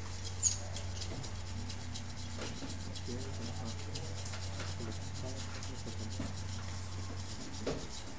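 Light rubbing and scraping on a laptop's heatsink-and-fan assembly as it is worked over with a small hand tool, over a steady low hum. A sharp click about half a second in.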